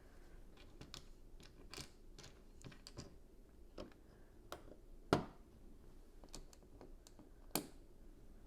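Small plastic LEGO pieces clicking and tapping as they are handled and pressed together, with two louder sharp clicks about five seconds in and near the end.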